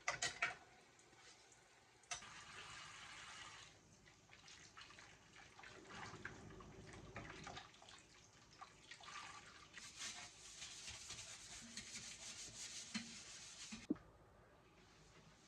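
Household sink sounds: spells of running water with rubbing or scrubbing, a few clicks just after the start and a sharp knock near the end. The longest and brightest spell of water comes in the second half.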